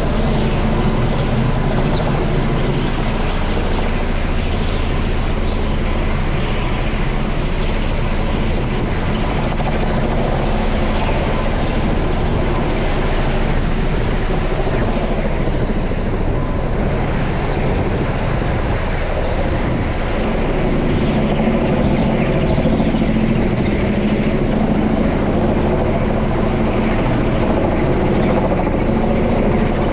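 Kamov Ka-32 helicopter, with coaxial contra-rotating rotors and twin turboshaft engines, flying overhead: a steady rotor and turbine drone that swells slightly in the last third.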